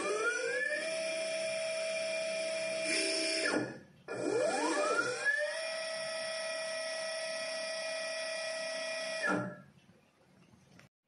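Brushless motors of TD30-E ducted underwater thrusters running out of water under remote joystick control: a rising whine as the propellers spin up, settling into a steady high hum, then winding down about three and a half seconds in. About half a second later they spin up again, hold for about four seconds, and wind down to quiet.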